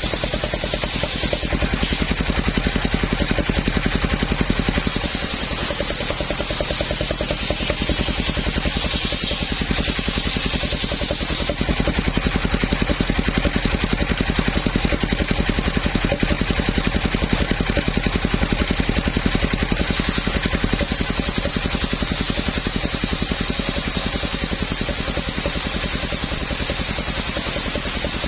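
Engine-driven homemade circular sawmill running steadily, with a fast, even engine beat throughout. A higher hiss comes in twice, about five seconds in and again after about twenty seconds.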